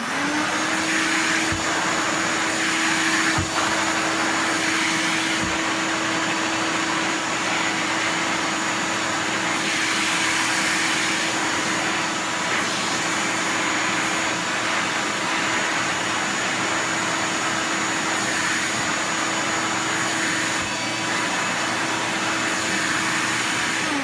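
Ridgid 12-gallon wet/dry shop vacuum switched on and spinning up within the first second, then running at a steady pitch while its floor nozzle is pushed over carpet.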